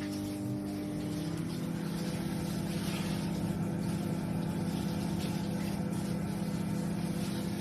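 Sharp R207EK 20-litre microwave oven running: a steady electrical hum with fan noise, its tone filling out about a second in.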